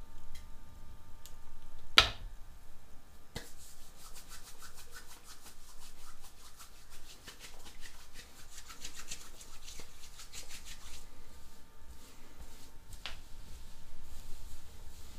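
Hands rubbing quickly back and forth, working clay pomade between the palms, then rubbing it into damp hair near the end. A sharp click about two seconds in is the loudest sound.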